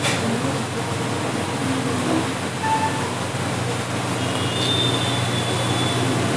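Steady low mechanical hum with a hiss over it, and a faint high tone for about a second near the end.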